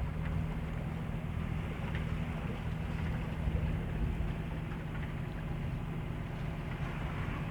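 A sailing yacht's engine running steadily at cruising speed, a constant low drone under an even rushing hiss, as the boat motor-sails.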